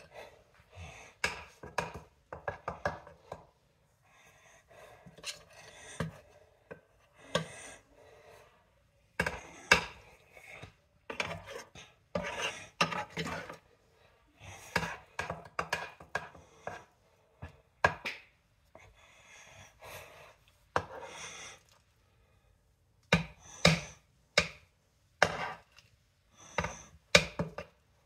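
Kitchen utensil knocking and scraping against dishes while cupcake batter is portioned out, in irregular clusters of sharp knocks with short pauses between them.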